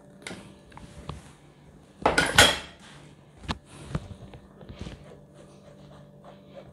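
Kitchenware clinking and clattering as a spoon works blended sauce through a plastic sieve over a ceramic bowl, with a louder clatter about two seconds in and a few sharp clinks after it.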